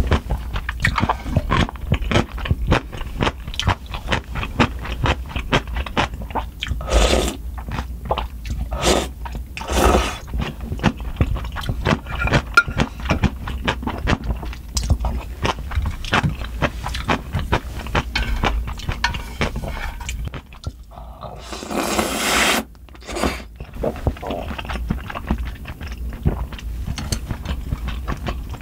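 Close-miked eating sounds of soupy spicy instant noodles: slurping, chewing and mouth noises, with a spoon scraping and clicking against the stainless steel pan.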